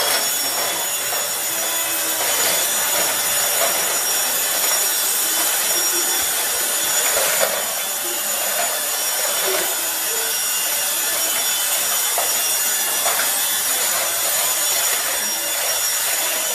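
A steady whirring rush with a high whine, from a small electric motor running.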